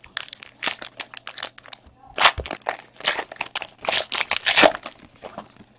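Foil baseball-card pack being torn open by hand, its wrapper crinkling in a rapid run of crackles that is loudest in the middle and thins out near the end.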